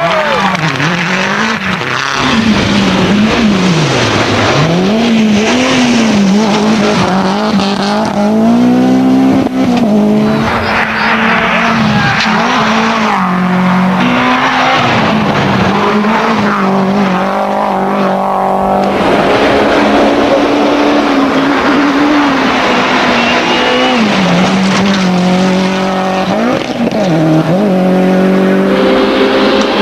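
Toyota Celica GT-Four rally car's turbocharged four-cylinder engine revving hard, its pitch rising and dropping again and again through the gear changes. This runs over a hiss of tyres and flung gravel, across several quick passes.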